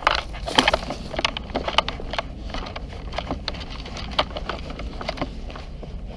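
A run of irregular sharp crackles and snaps, densest about half a second in, over a steady low rumble.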